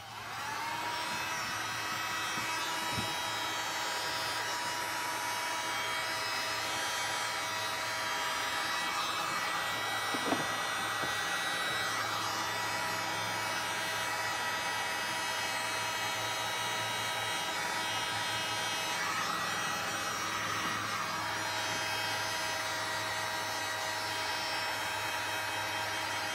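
Electric heat gun switched on, its fan motor spinning up and then running with a steady whine while it heats a flattened PVC pipe rib to soften it for bending to the canoe hull.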